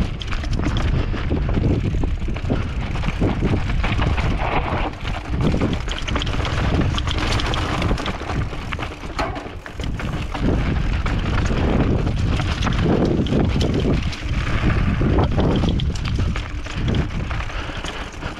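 Wind buffeting the microphone during a fast mountain-bike descent, with the tyres rolling over hard-packed dirt and loose gravel and the bike rattling over rocks in many small knocks.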